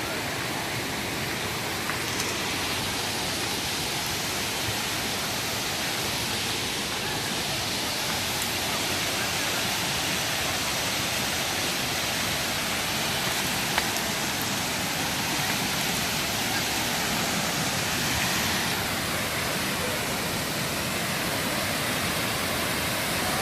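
Waterfall: a steady, even rush of water falling over rock.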